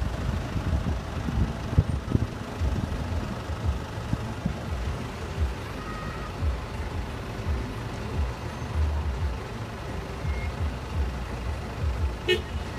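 Low, uneven rumble of road traffic mixed with wind on the microphone, and a short high beep near the end.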